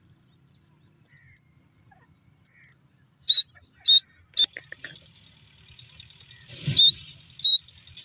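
Grey francolin (teetar) calling: five loud, short, high-pitched notes, three in quick succession about half a second apart, then two more near the end, with a dull thud under the fourth.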